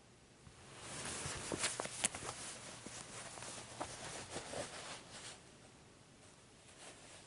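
Rustling and soft tapping of leather ostrich-skin cowboy boots and denim jeans shifting against a fleece blanket close to the microphone. It swells about a second in, with a few sharp little clicks, and dies away after about five seconds.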